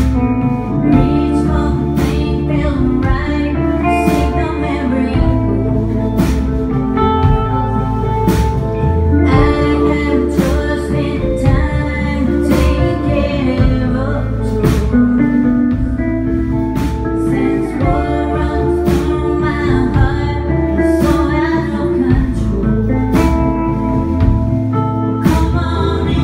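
Live band playing a song: electric guitars, bass guitar and drums with a steady beat.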